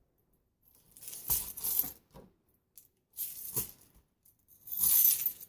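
Small metal craft charms jingling as they are handled, in three short bursts.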